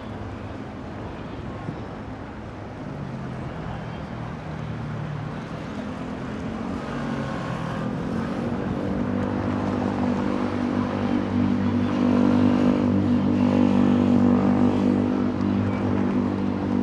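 City road traffic, with a vehicle engine's low steady drone growing louder from about halfway through and loudest near the end.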